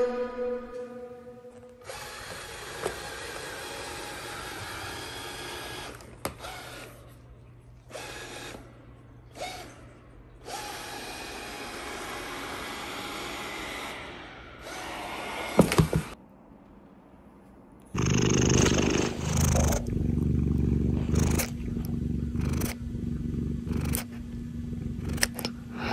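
Scottish Fold cat purring close to the microphone, loudest from about two-thirds of the way in, with a few soft knocks in the quieter stretches before.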